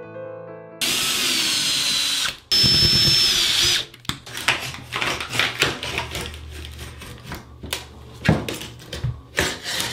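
A cordless drill runs twice, about a second and a half each time, backing screws out of a metal shower-door frame. Irregular clicks and scrapes of hand tools working at the frame follow.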